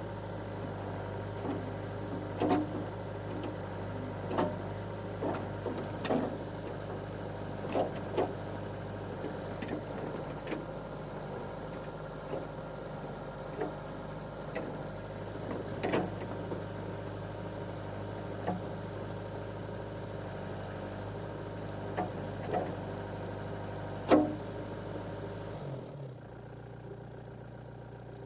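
Compact excavator engine running steadily, with sharp knocks every second or two over it, the loudest near the end. About two seconds before the end the engine note drops lower.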